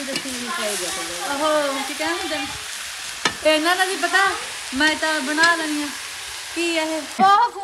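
Food frying in a pot on a stove, a steady sizzle as it is stirred with a ladle, with voices talking over it.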